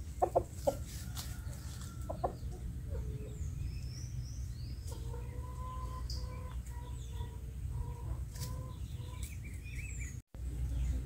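A rooster clucking a few short times near the start, with small birds chirping high in the background. About halfway through comes a run of low, evenly repeated bird calls.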